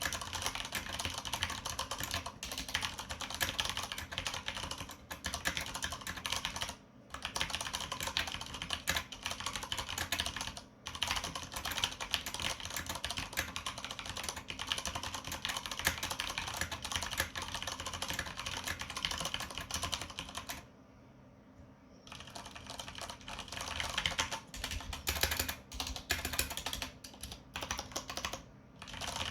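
Fast, continuous typing on a mechanical keyboard with Cherry MX Brown switches and PBT keycaps, a dense run of key clicks. The typing pauses briefly about 7 and 11 seconds in, stops for about a second around 21 seconds in, then resumes.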